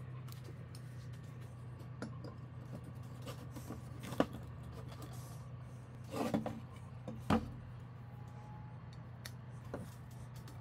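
An angle grinder and a painted steel plate being handled and set down on a wooden workbench: a few scattered knocks and clatters, the loudest about seven seconds in, over a steady low hum.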